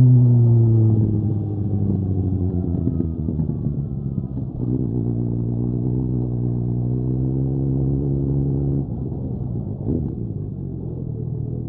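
Suzuki GSX-S 750 inline-four motorcycle engine through a Mivv Storm aftermarket exhaust, heard while riding. The engine note falls as the bike slows over the first few seconds, holds steady for about four seconds, then drops back near the end.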